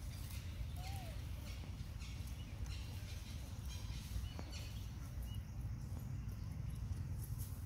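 Outdoor ambience of a forest floor: a steady low rumble with faint rustling, and a few faint, short bird-like chirps, one a small rising-and-falling call about a second in.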